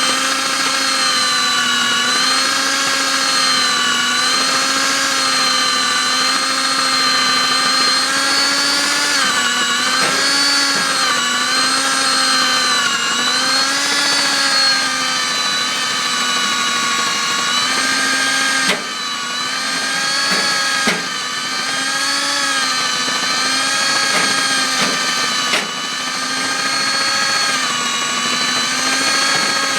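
Diamond core drill's electric motor running under load while drilling, with a vacuum cleaner running for the dust. The drill's whine wavers slightly in pitch as the load changes, and its loudness dips briefly a few times about two-thirds of the way through.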